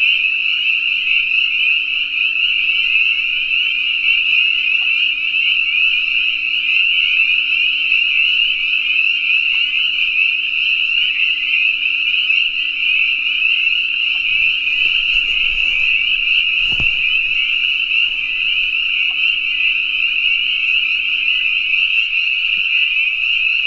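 Loud, dense chorus of many frogs calling at once: a high-pitched mass of overlapping trills. A faint steady low hum runs beneath and stops near the end, and a single soft knock falls about two-thirds of the way through.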